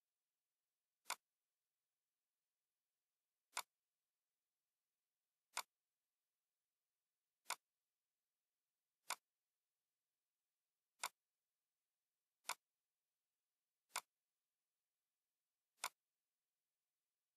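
Computer mouse clicking, nine single sharp clicks spaced unevenly about one and a half to two and a half seconds apart, each one picking a point to fill a wall with hatch in a CAD drawing.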